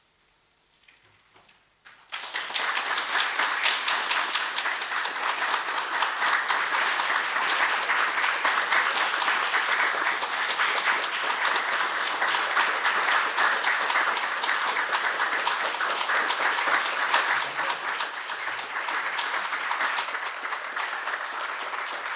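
Audience applauding. After about two seconds of near silence, the clapping starts all at once and continues steadily, easing slightly near the end.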